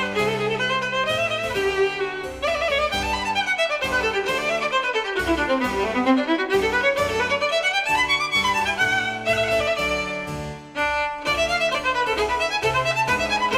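Background music led by a violin playing quick runs of notes over a steady bass line, with a short break just before the end.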